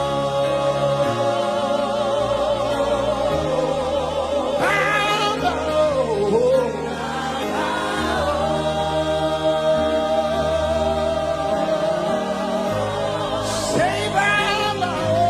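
Gospel worship song: a lead singer holds long notes with vibrato and sings swooping runs, with a choir or congregation and a band of keyboard and bass sustaining chords.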